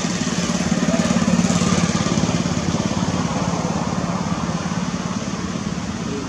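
A small engine running steadily, swelling a little about a second in, then cutting off suddenly.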